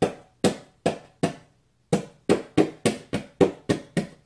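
Letter opener stabbed repeatedly into the side of a cardboard box, each stab a hollow thud from the box. A few strokes about two a second, a short pause about a second and a half in, then a quicker run of about three to four a second.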